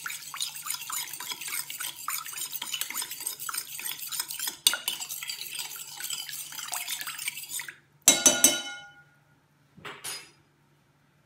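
Metal spoon stirring sugar into orange blossom water in a cut-glass bowl: fast, continuous scraping and clinking against the glass. It stops with one loud, ringing clink about eight seconds in, then a fainter knock.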